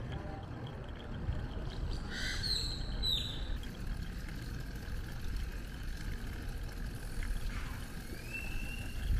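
Low, steady rumble of wind and rolling on the microphone of a camera carried on a moving bicycle. A few high chirps come about two to three seconds in, and a short rising whistle near the end.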